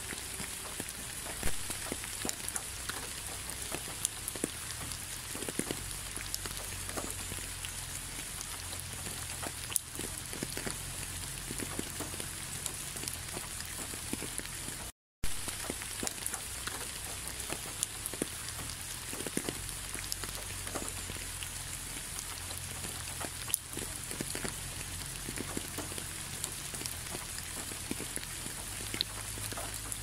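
Steady rain: separate drop hits over an even hiss. The sound drops out completely for a split second about halfway through.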